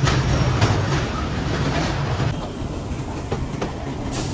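Train running on the track: a steady low rumble with sharp wheel clacks over the rail joints now and then.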